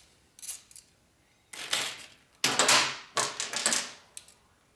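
Metal hand tools clattering and clinking together on the workbench as they are picked through, in a few quick bursts, the loudest a little past the middle.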